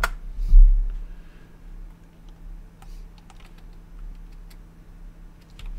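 Computer keyboard and mouse clicks: a sharp key press at the start and a dull thump just after it, then scattered light clicks, over a steady low electrical hum.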